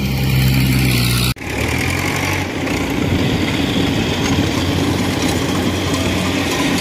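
Tracked rice combine harvester's engine running steadily as the machine crawls through the wet paddy, with a dense mechanical din. About a second in the sound changes abruptly from a steady engine hum to a noisier, busier mix.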